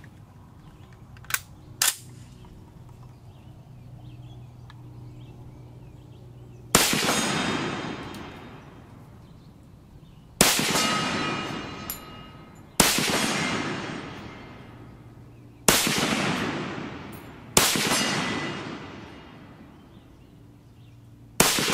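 Walther Gewehr 41 (W) semi-automatic rifle firing 7.92×57mm Mauser: six shots spaced two to four seconds apart, each followed by a long echoing decay. Two sharp clicks come about a second and a half in, before the first shot.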